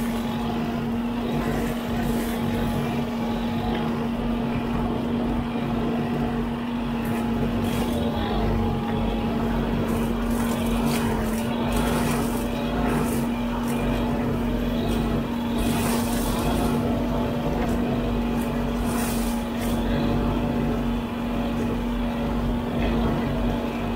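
Huddig 960C6 backhoe loader running steadily while its boom-mounted hydraulic brush cutter spins and mows grass and brush, a steady hum with scattered brief crackles of cut vegetation.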